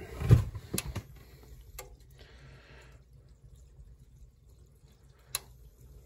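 Handling noises at an open gas furnace cabinet as it is being powered up: a knock just after the start, a few sharp clicks, and a brief hiss about two seconds in, over a low steady hum.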